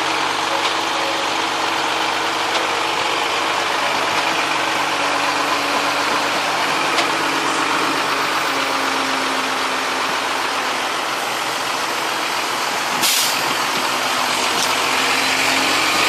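Boat engine running steadily, with a brief hiss about thirteen seconds in.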